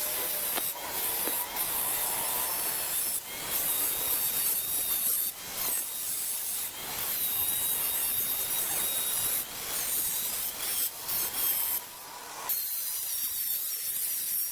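Workshop metalworking noise: steady rubbing and scraping of tools on metal, broken by several short gaps and clicks.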